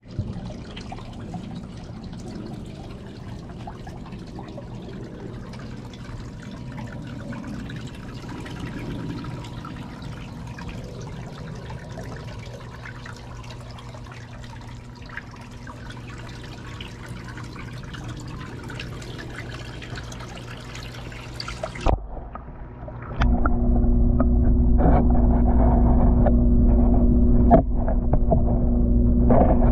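Water trickling in a galvanized stock-tank pond over a faint steady hum. About 22 seconds in there is a sharp knock, and then, with the microphone under the water, the sound turns muffled and much louder, taken over by a steady low hum with a constant tone and scattered small knocks.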